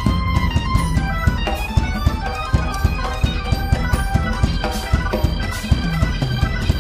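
Live jazz-fusion band playing loud: keyboards over electric bass, guitar and a busy drum kit, with many quick notes and steady drum hits.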